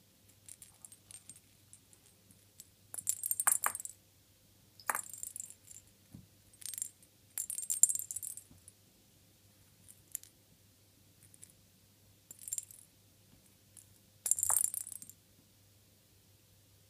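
Holey plastic cat-toy ball jingling as a cat bats it across the carpet, in short bursts about half a dozen times, the loudest about 3, 8 and 14 seconds in.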